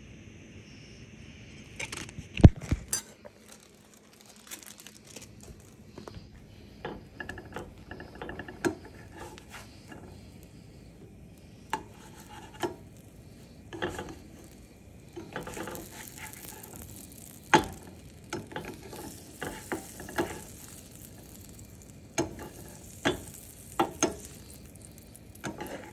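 Grilled cheese sandwich frying in a pan on a stovetop burner, with a faint sizzle and scattered clicks and knocks of a utensil against the pan; a sharp knock about two and a half seconds in is the loudest sound.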